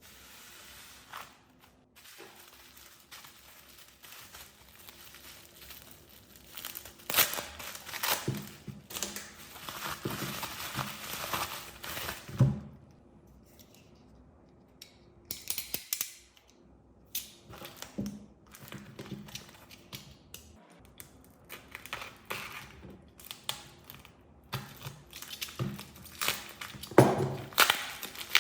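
Hands handling a damaged phone and its parts: intermittent crinkling and scraping with sharp knocks, the loudest about halfway through and again near the end.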